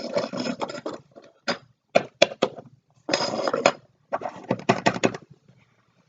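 Small plastic toy figures and accessories being handled and moved on a hard surface: several short bursts of scraping and clatter with sharp clicks and taps.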